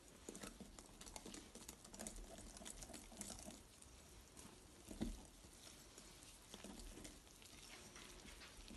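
Wire whisk stirring flour into a thick cake batter in a glass bowl, a faint, irregular patter of small taps and scrapes against the glass, with one louder knock about five seconds in.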